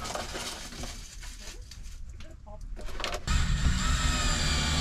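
Handling clicks, then about three seconds in a cordless drill starts up and runs steadily, with a whine, driving a screw into the plywood wall.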